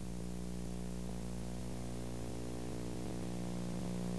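Steady electrical hum, a low buzz made of evenly stacked tones with a faint hiss over it, on an old videotape's sound track where no live sound is coming through.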